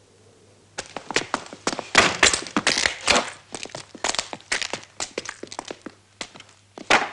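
Footsteps crunching and scraping over a gritty, debris-strewn floor: a quick, irregular run of cracks and crunches that starts about a second in.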